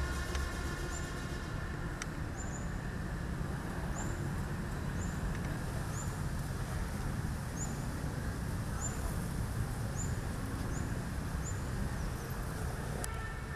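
Steady hum of city traffic with a small bird repeating short, high chirps about once a second.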